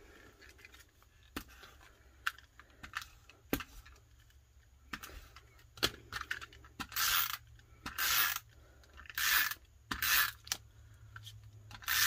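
Paper being handled with a few light clicks, then from about halfway a tape runner drawn across paper in repeated short strokes, each about half a second long, roughly one a second.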